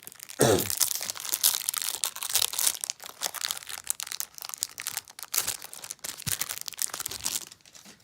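Foil wrapper of a Pokémon booster pack crinkling and tearing as it is opened by hand, a busy crackle that stops about seven and a half seconds in.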